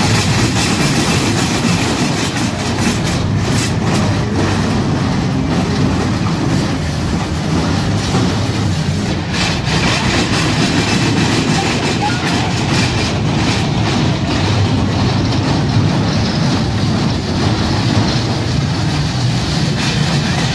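Small dragon kiddie roller coaster running its track: the train of cars rumbling and clattering along the steel rails, with many small clicks and knocks.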